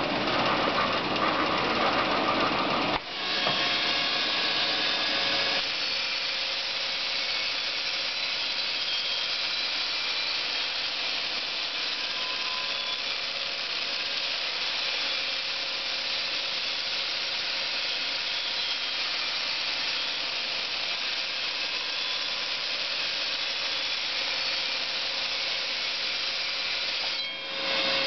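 Yangder YD-IPB350 inner-and-outer polishing machine running with a steady hissing whir as its abrasive wheels polish a cast iron pot. The sound changes abruptly about three seconds in and again near the end.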